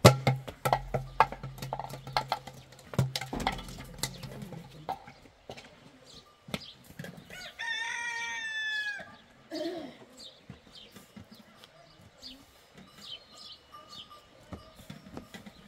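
A rooster crows once, one long call of about a second and a half a little past the middle. Before it, during the first five seconds or so, come a series of sharp knocks and clicks over a low steady hum.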